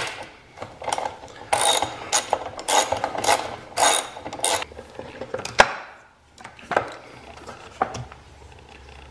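Socket ratchet clicking in repeated short rasps as the battery hold-down bracket's bolt is backed out, ending in a sharp click about five and a half seconds in. A few lighter knocks follow as the bracket is handled.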